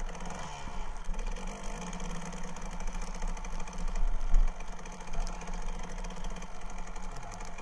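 1999 Kawasaki KDX220R two-stroke single-cylinder dirt bike engine running under riding, rising and falling with the throttle, with a louder burst about four seconds in. It is muffled, heard through the camera's case.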